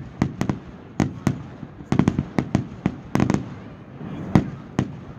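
Aerial fireworks shells bursting overhead in a rapid, irregular string of sharp bangs, about three a second, the loudest about four seconds in.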